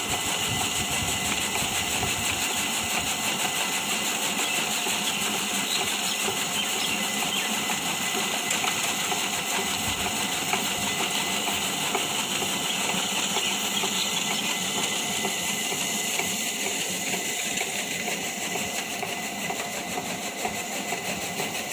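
A motor-driven machine running steadily with a continuous whir and hiss, easing off a little in level after about sixteen seconds.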